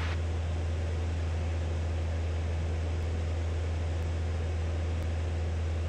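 Steady drone of a Robin DR500 light aircraft's piston engine and propeller in cruise, heard inside the cockpit: a constant low hum under an even rushing noise.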